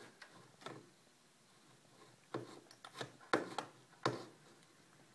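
Irregular sharp clicks and clunks from a Macintosh Plus's floppy drive reading the disk, two early on and a quick cluster in the second half.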